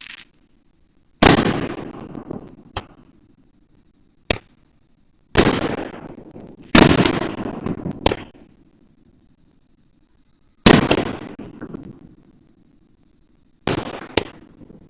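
Fireworks shells bursting overhead: a string of sharp, loud bangs at irregular intervals, some in quick pairs. Each bang is followed by a fading tail of crackling.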